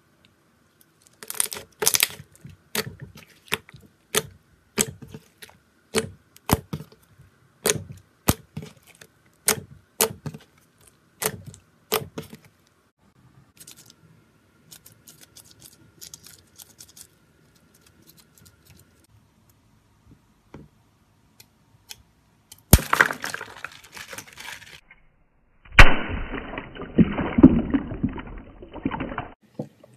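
Water wiggle slime stress balls being handled: a regular run of sharp clicks for about twelve seconds, then a sharp crack as one is cut open and its red liquid slime gushes and splashes out, the loudest sound, near the end.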